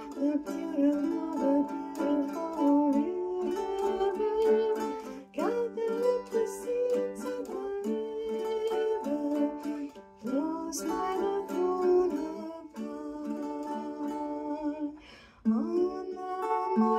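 A woman singing a slow melody while plucking a small four-string ukulele-type instrument. There is a brief pause near the end before both pick up again.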